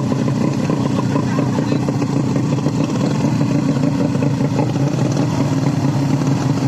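130 cc underbone motorcycle engines running at a steady, loud level.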